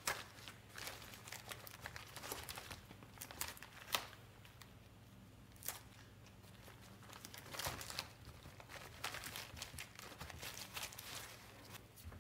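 Cuben fiber (Dyneema composite) fabric crinkling and crackling as hands fold and press it, in irregular bursts. There is a quieter stretch in the middle.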